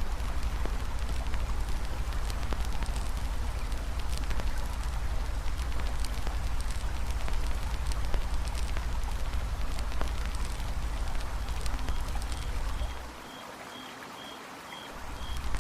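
Campfire crackling with many small sharp pops over a steady rush of flowing river water. A deep low rumble underneath drops out for about two seconds near the end, and late on a faint high chirp repeats about twice a second.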